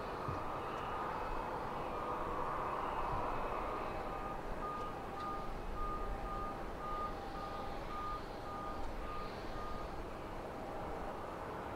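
A vehicle's reversing beeper: short beeps at one high pitch, about two a second, starting about four seconds in and stopping near the end. Underneath is a steady distant rumble of airport and aircraft noise.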